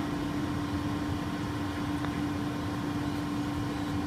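Cooling tower plant machinery running: a steady hum with one strong constant tone over a low rumbling noise.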